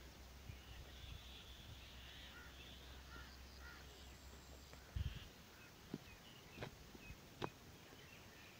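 Birds chirping faintly. In the second half come a few sharp knocks: an iron digging bar striking hard soil at the base of a date palm offshoot as it is dug out.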